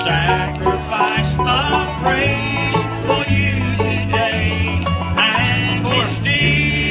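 Live bluegrass music with a banjo picking over steady low notes that change about once a second.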